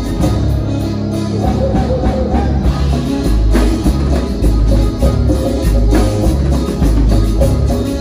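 A band playing upbeat dance music, with a steady bass and drum beat.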